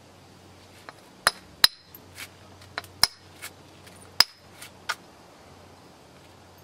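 Flintknapping: a Buffalo River chert slab struck along its edge with a knapping tool, giving about nine sharp clicking knocks at uneven intervals, each with a brief high ring. The loudest blows fall about a second and a half and four seconds in.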